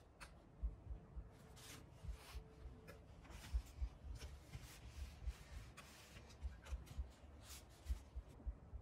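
Faint rustling and rubbing of fabric being folded and creased flat by hand, with scattered soft taps and low thumps.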